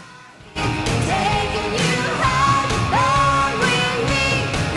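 Rock song with a singing voice, cutting in abruptly about half a second in.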